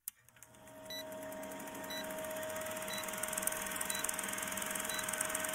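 Old-film countdown leader sound effect: a film projector's rapid clatter and hiss fading in over a steady tone, with a short high beep about once a second as the countdown ticks down.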